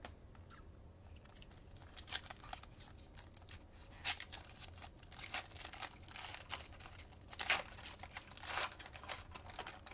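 Foil wrapper of a Panini Chronicles trading-card pack being torn open and crinkled by hand, in irregular crackles. The loudest rips come about four seconds in and twice near the end.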